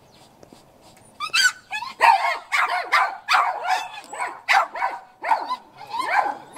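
Small dog barking over and over, about two high-pitched barks a second, starting about a second in.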